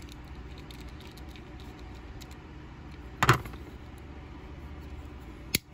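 Handling sounds from a Buck Spitfire folding knife being put back together: a brief knock about three seconds in and a sharp click near the end, over a steady low hum.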